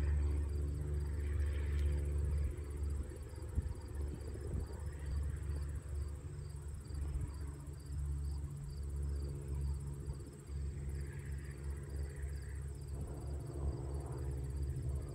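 Crickets chirping in a steady, evenly pulsing rhythm over a continuous low hum and rumble.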